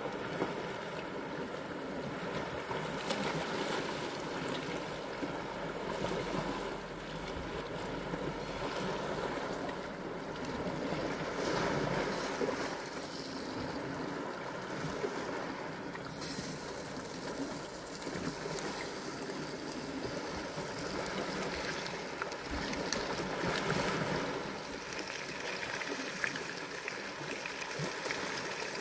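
Small sea waves washing over a rocky shore, with the sizzle and crackle of stuffed squid frying in an iron pan over a small wood fire, picking up about halfway through.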